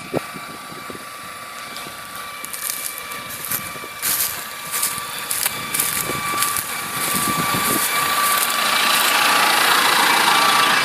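Claas Ares 567 tractor's diesel engine running with a steady high whine, growing louder from about seven seconds in, with scattered rattles and clicks.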